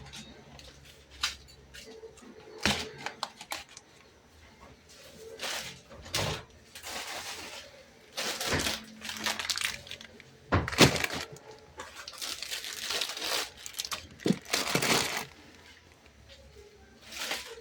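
Household objects being handled: scattered knocks and clicks with a few short rustling, scraping stretches.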